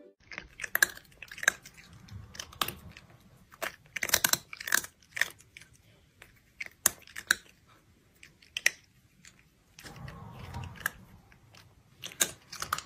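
A kitten chewing and smacking its mouth close to the microphone, with irregular crunchy clicks and short pauses between bites.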